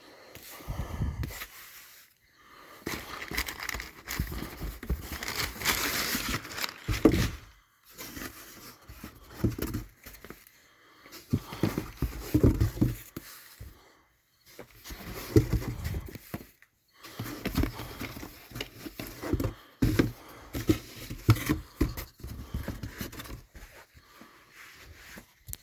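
Packaging being handled and unwrapped by hand: crinkling and rustling with occasional knocks, coming in stretches broken by several short silences.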